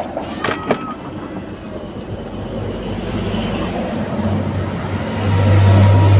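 A few sharp clicks in the first second, then a low, steady engine rumble from a passing motor vehicle that builds from about four seconds in and is loudest near the end.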